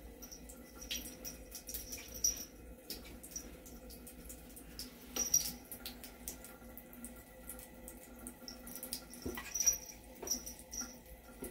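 A thin stream of water running from a bathroom sink tap, with small irregular splashes, drips and clicks as a cat paws at the water.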